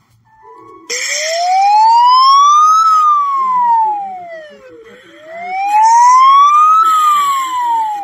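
Emergency alert siren: a single tone that slides up for about two seconds and back down for two, twice over, starting about a second in. It sounds like a cartoon character going up and down.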